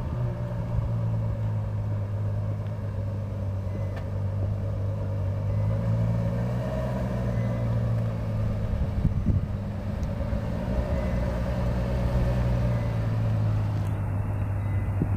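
Ferrari FF's 6.3-litre V12 at low revs, its exhaust giving a steady low note that rises and falls slightly as the car creeps past at parking-lot speed.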